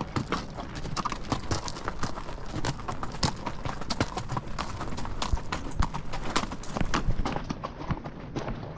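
Horses' hooves clopping at a walk, an irregular run of many hoof strikes on the trail.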